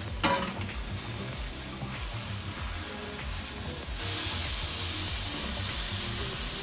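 A thick fish fillet sizzling as it fries in a skillet with a coconut-oil marinade, a steady hiss. About four seconds in the sizzle turns louder as the fish is turned onto its other side.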